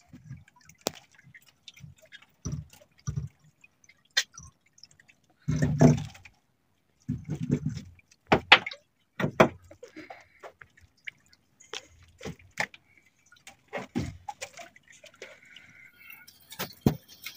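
Wet drips and splashes with scattered knocks and clicks from squid jigging by handline: a squid being taken off the jig and the wet line hauled in hand over hand, water dripping off it.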